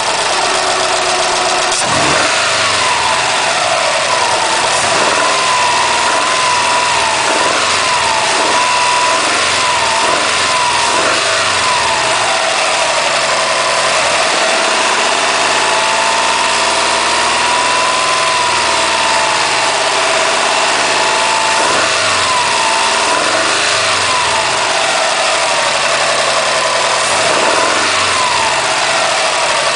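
2008 Subaru WRX's turbocharged flat-four engine being lightly revved up and down, its pitch rising and falling again and again. It carries a weird noise that the owner can't identify, heard only between 1500 and 2300 RPM on light revving.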